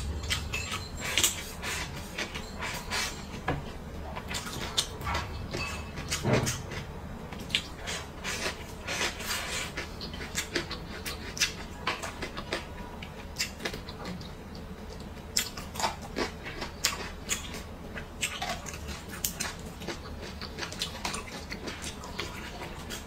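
Close-miked eating sounds: chewing and biting on braised meat and pickled peppers, with many short, irregular wet clicks and mouth smacks.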